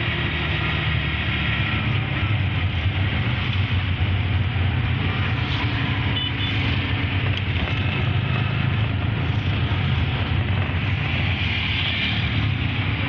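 Steady city traffic noise from a moving vehicle: a continuous low engine hum and road noise, with auto-rickshaws and cars running close by.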